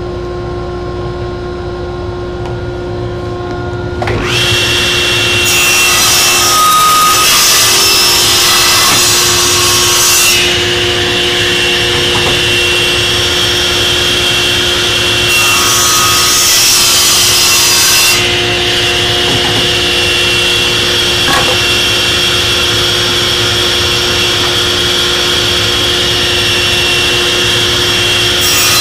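Table saw running and cutting wood held in a clamped sled. A quieter steady hum gives way to the loud run of the saw about four seconds in, with two cuts through the wood: a long one starting about six seconds in and a shorter one around sixteen seconds in.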